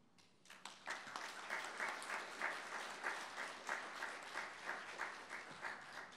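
Audience applauding, building up about half a second in and tapering off near the end.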